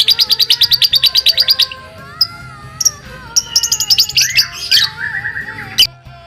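Baby lovebird chirping in rapid 'crit crit' runs: a fast series of sharp chirps that stops about a second and a half in, then scattered single chirps and two more quick bursts later on. Background music plays underneath.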